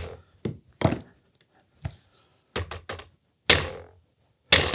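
Mallet blows on the sliding handle of a bench-mount gun vise, knocking out a bend the handle took in shipping: about eight sharp knocks at uneven spacing, a few of them louder than the rest.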